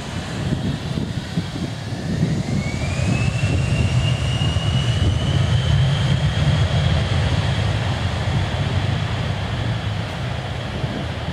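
A business jet's twin rear-mounted turbofan engines spool up for the takeoff roll. A whine climbs in pitch a couple of seconds in, then holds high over a loud low rumble.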